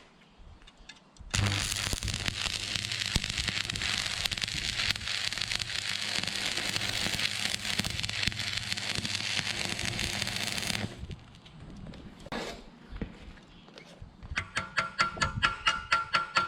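Electric arc welding on steel: a steady, dense crackle for about nine seconds that cuts off suddenly as the arc is broken. Rhythmic percussive music starts near the end.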